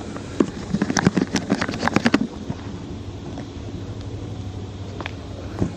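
Handling noise as the phone and its light are moved: a quick run of clicks and knocks for about two seconds, then a couple of single clicks near the end. A steady low mechanical hum runs underneath.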